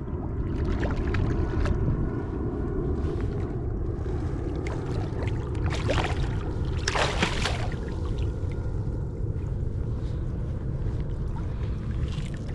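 Steady wind and water noise around a kayak, rumbling on the microphone, with two brief louder noises about six and seven seconds in.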